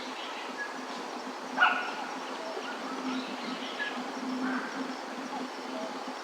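Outdoor ambience with scattered short bird chirps over a steady background hiss, and one louder, short bark-like call about one and a half seconds in.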